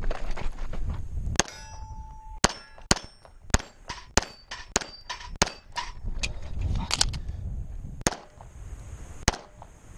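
A string of about a dozen pistol shots at an irregular pace, several followed by short metallic rings from steel plate targets being hit.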